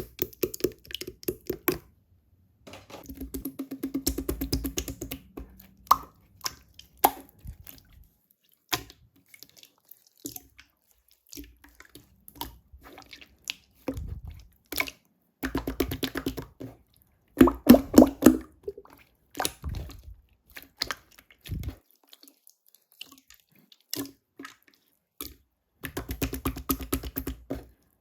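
Clear slime being squished and worked by hand: bursts of rapid wet clicks and small pops, separated by short pauses.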